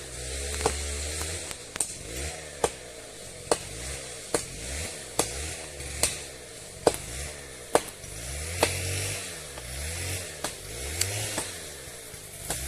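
A machete chopping into wood with sharp, evenly spaced strikes, a little more than one a second. Under the strikes a chainsaw engine runs, its pitch rising and falling.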